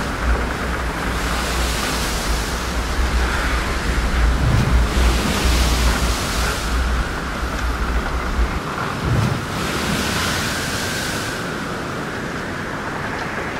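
Wind buffeting the microphone over the rush of a sailing yacht's hull through rough seas, with the hiss of water and spray surging about every four seconds. The heavy wind rumble drops away about two-thirds of the way through, leaving the steady rush of the sea.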